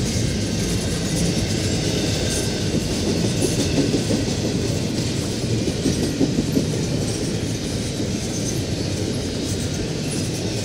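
Intermodal freight train cars rolling past on the rails: a steady rumble of wheels on track, with light clicking as the wheels cross rail joints.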